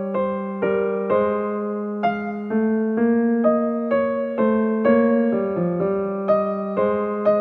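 Background music: a piano-like keyboard playing a slow, even run of notes, about two a second, over a held low note.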